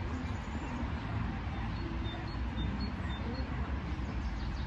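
Outdoor ambience: a steady low rumble of wind on the microphone, with short faint bird chirps now and then and a faint voice in the distance.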